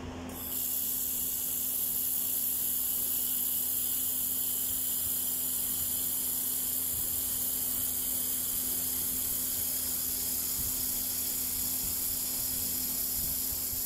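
Handheld fiber laser welder running a weld on aluminium plate with wire feed: a steady high hiss that starts about half a second in and cuts off at the end, over a steady low hum.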